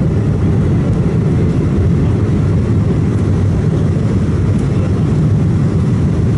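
Cabin noise of an Embraer 190 at takeoff thrust: a steady, loud low rumble from its GE CF34 turbofans and the takeoff roll as the airliner rotates and lifts off.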